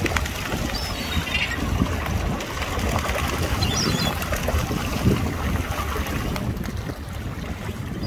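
Wind buffeting the microphone as a steady low rumble, with short high bird chirps about a second in and again around four seconds.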